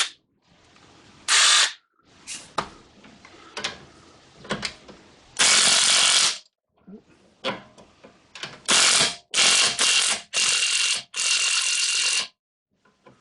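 Ratchet wrench clicking in short fast bursts, about six runs, with single clicks and pauses between, as it runs a 19 mm nut onto a new sway bar link.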